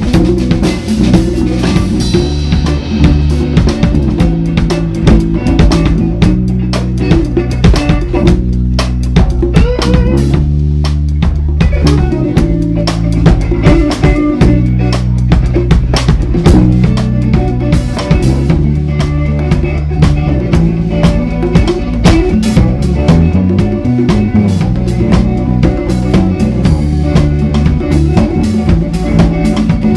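A live rock band playing loudly: a drum kit with kick drum and snare keeps a steady beat under a bass guitar line and electric guitar.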